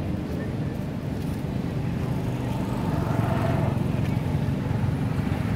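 Steady low rumble of outdoor background noise, a little louder in the second half.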